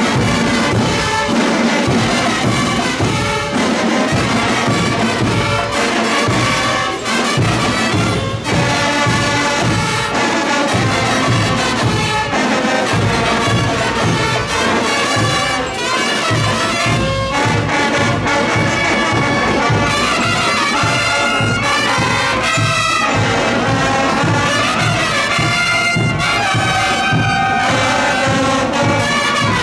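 School marching band playing: brass and saxophones carry the melody, with a sousaphone in the bass, over a steady beat of bass drums, snare drums and crash cymbals.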